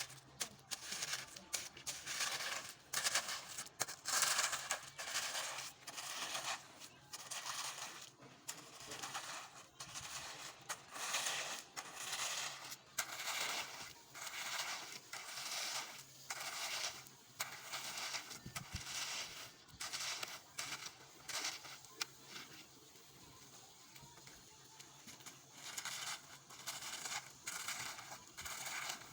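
Hand tools scraping and spreading wet concrete in repeated rough strokes, about one or two a second, easing off for a few seconds about two-thirds of the way through.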